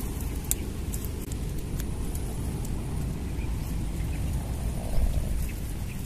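Wind rumbling on the microphone, with a few faint clicks and rustles as the bundle of glue-coated sticks is handled in the grass, and a louder bump about five seconds in.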